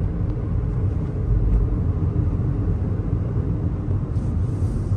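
Road and engine noise inside a moving car's cabin: a steady low rumble with no sudden changes.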